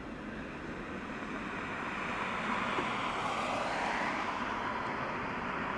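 Jet engines of a Boeing 777-300ER (GE90s) at taxi power, a steady rushing hiss that swells over the first few seconds and then eases slightly as the aircraft rolls past.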